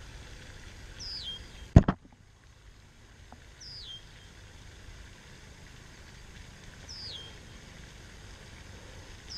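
A bird repeats a short high whistle that slides down in pitch and ends on a brief level note, about every three seconds, over a low steady outdoor background. About two seconds in comes a single loud thump, the camera being handled or set down.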